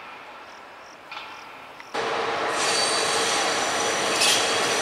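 Class 060-EA electric locomotive rolling slowly through station tracks: running noise with a steady hum and high squealing from the wheels on the rails. It comes in abruptly about two seconds in after quieter sound, with a brief sharper squeal near the end.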